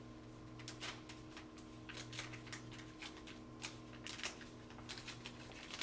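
Light crinkling and small clicks of plastic packaging and a sterile catheter kit tray being handled with gloved hands, a few times a second, over a steady low hum.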